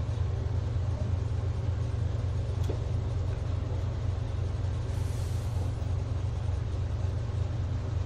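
Tugboat's diesel engines running steadily with the propeller working, a low even drone, with a brief faint hiss about five seconds in.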